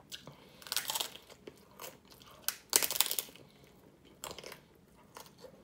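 Crunching of a hard corn taco shell being bitten and chewed, close to the microphone: three spells of crisp crunches, about a second, three seconds and four seconds in, the middle one the loudest, with small chewing clicks between.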